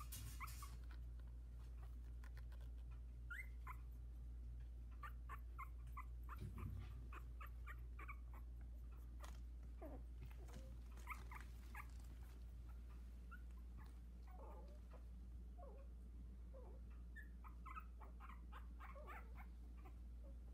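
Newborn Havanese puppies, about two weeks old, squeaking and whimpering faintly in short high cries scattered throughout, some sliding down in pitch. A steady low hum runs underneath.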